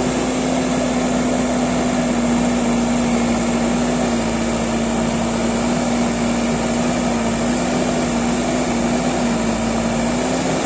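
ACE backhoe loader's diesel engine running steadily under load while the backhoe arm digs and lifts soil. Its pitch sags slightly through the middle and picks up again near the end.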